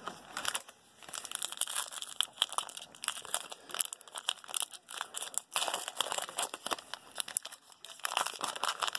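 Foil wrapper of a Panini basketball card pack crinkling in the hands as it is pulled from the box and torn open, a fast irregular crackle throughout.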